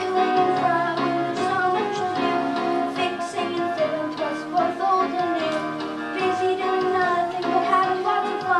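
Children singing a song together to instrumental accompaniment.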